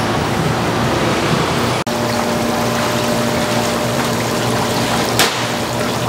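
Water rushing and bubbling in an aerated tank of live squid, with a steady hum underneath. There is a brief dropout about two seconds in and a short click near the end.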